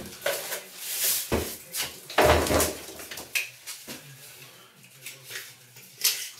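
Knocks and scrapes of a plastic window board being handled and set against a window reveal: a string of sharp clatters, loudest about two seconds in, then quieter.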